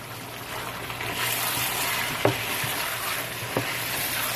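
Chicken and bitter gourd curry sizzling in hot oil as it is stirred in the pot. The sizzle grows louder about a second in, and a spoon knocks against the pot twice.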